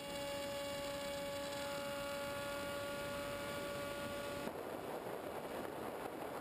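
Steady rush of air over a model plane's onboard camera, with the Multiplex EasyStar's electric motor whining at one steady pitch. The whine cuts off suddenly about four and a half seconds in, leaving only the air rush.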